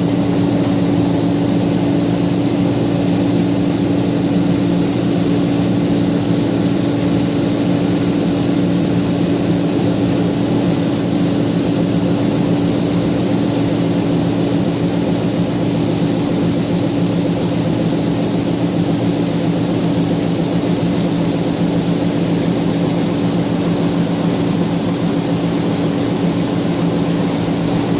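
John Deere 9550 combine running at a steady, unchanging drone with a constant hum while its unloading auger empties the grain tank into a grain cart.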